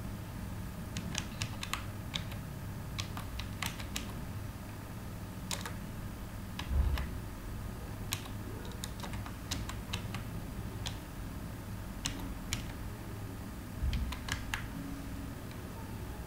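Computer keyboard typing: irregular bursts of key clicks over a steady low hum. Two dull low thumps, about seven and fourteen seconds in, are the loudest moments.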